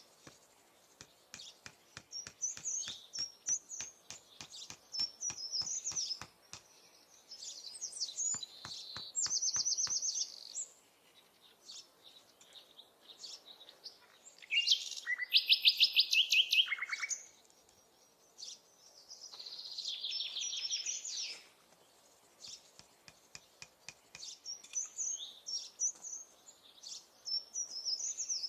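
Wild birds singing outdoors: several high chirping songs and rapid trills, the loudest a fast trill about halfway through. Many short sharp clicks or taps run through the first third and come again later.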